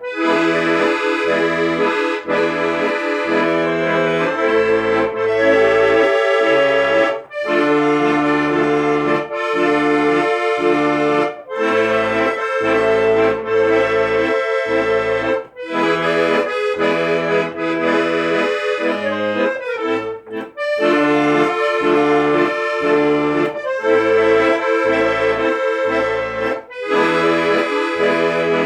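Accordion playing an instrumental passage of a folk-style song: a held melody and chords over a bass that sounds in a steady on-off rhythm, with brief breaks between phrases.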